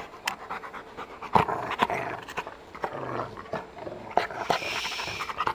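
A small dog panting right at the microphone, with many sharp clicks and taps throughout.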